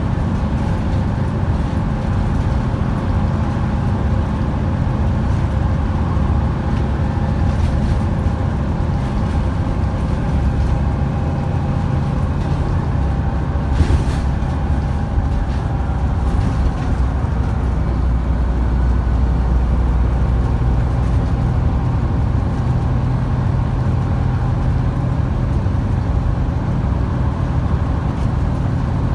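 Scania N230UD OmniCity double-decker's five-cylinder diesel engine heard from inside the passenger cabin, pulling as the bus drives along. The engine note shifts about a third of the way in and again about two-thirds in, and a single sharp knock comes about halfway.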